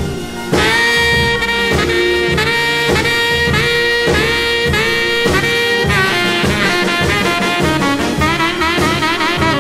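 Instrumental break of a blues song: a horn section of saxophones and brass plays held chords that change every second or so, over a steady bass and drum beat.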